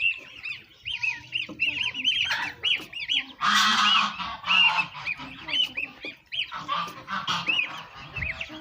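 Goslings and ducklings peeping in a rapid, high-pitched chorus, broken by louder honking calls about three and a half seconds in and again around seven seconds.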